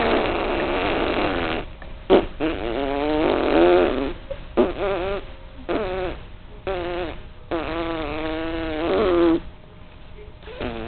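A voice making silly, buzzing, raspberry-like noises in a string of separate bursts with wavering pitch: a rough, noisy one first, then several shorter wobbling ones, and a longer one of about two seconds near the end.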